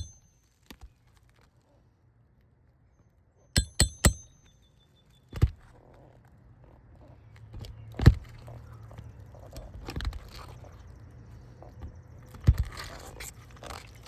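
A hammer strikes a steel nail-pulling tool three times in quick succession with a ringing metallic tone, driving it under a roofing shingle to draw a nail. Then come a few single duller knocks and faint scraping as the nail is worked out.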